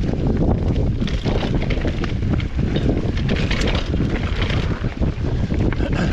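Wind rushing and buffeting over an action-camera microphone on a mountain bike riding a trail at speed. Many short clicks and rattles from the bike running over rough ground come through the wind.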